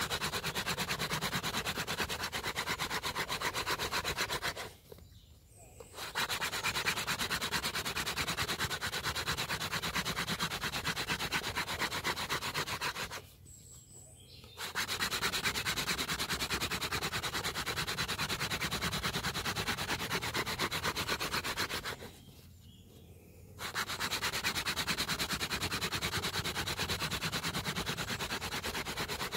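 Hand-drill friction fire: a hazel spindle twirled in a socket on a dry bay laurel hearth board, a steady dry wood-on-wood rubbing, stopping briefly three times. The drilling grinds out dark char dust into the notch, working toward an ember.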